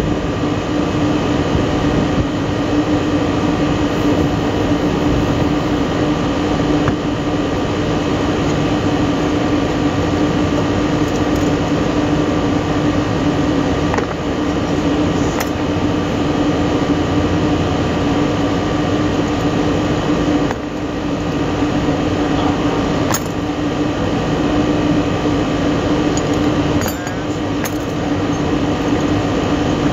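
Steady drone of rooftop HVAC equipment running, with a strong low hum. A few light clicks of metal hardware being handled stand out faintly about halfway through and near the end.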